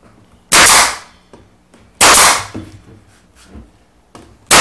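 Pneumatic nail gun firing three times, each a sharp crack with a short tail as a nail is driven into the wood.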